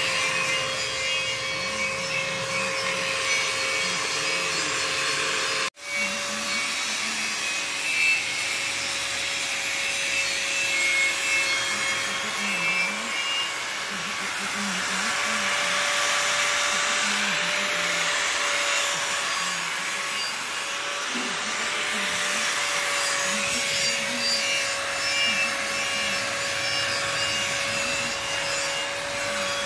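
Angle grinder running with an abrasive disc pressed against a thin sheet-metal funnel: a steady motor whine under the hiss of the disc scrubbing the metal. The sound cuts out for a moment about six seconds in.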